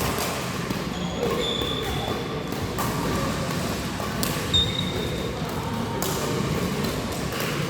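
Badminton play in a reverberant hall: rackets striking the shuttlecock with several sharp hits a few seconds apart, and short high squeaks of shoes on the court floor.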